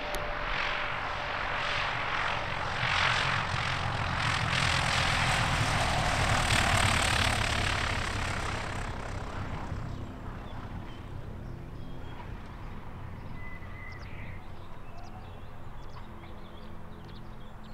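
Single-engine piston light aircraft, a Cessna 172 type, flying low past on landing approach with engine and propeller noise, loudest about seven seconds in. After about nine seconds the sound drops away to a quieter, steady low engine note as the plane is down on the runway and rolling out.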